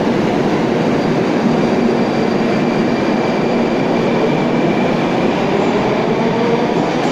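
Moscow metro train pulling out of the station, its wheels rumbling steadily on the rails as it passes. A faint motor whine begins to rise in pitch in the second half as the train gathers speed.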